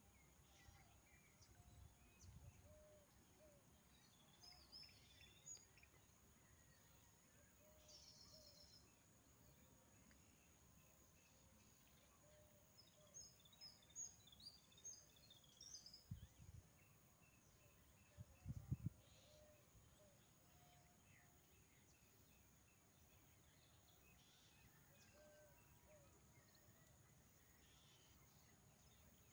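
Near silence: faint outdoor ambience with a few scattered bird chirps, and two short low thumps about two-thirds of the way through.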